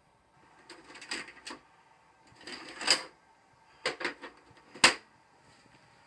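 Plastic clicks and knocks of a VHS cassette being handled at an Emerson VCR: a short cluster of clicks about a second in, a longer sliding scrape about halfway through, then three sharp clicks, the last and loudest near the end.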